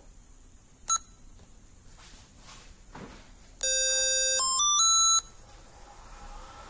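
Smartphone notification chime from the remote-start app: a short click about a second in, then, a little over three and a half seconds in, a held electronic tone followed by a quick rising run of notes, lasting about a second and a half. It confirms that the remote start command went through.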